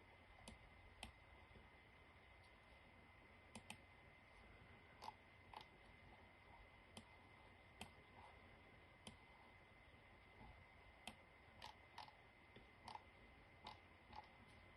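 Faint, irregular computer mouse clicks, about fifteen short clicks spaced unevenly, over quiet room hiss with a faint steady high whine.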